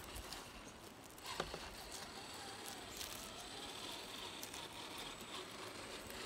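Redcat Gen8 scale RC crawler creeping over dirt, twigs and leaves: a faint whine from its electric motor and gears, with light crackling and scattered small clicks as the tyres roll over the debris.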